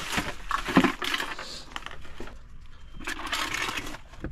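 Plastic bags and junk being shifted and rummaged through by hand: rustling and light clattering, with a louder knock about a second in.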